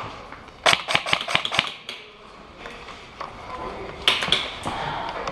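Airsoft gunfire: a quick string of sharp snapping shots about a second in, then a couple more around four seconds in.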